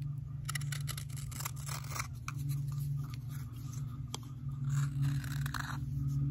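A hook knife (spoon knife) shaving thin layers from the inside of a dried wooden spoon bowl: a run of short, crisp scraping cuts, some drawn out into brief hissing strokes. These are light finishing cuts on dry wood. A steady low hum runs underneath.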